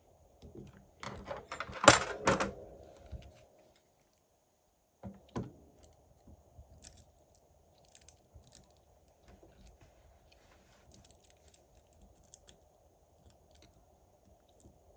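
Small hand tools clinking and rattling as one is picked up, loudest about two seconds in, followed by a single click and then faint scattered ticks of small-tool work on the phone battery.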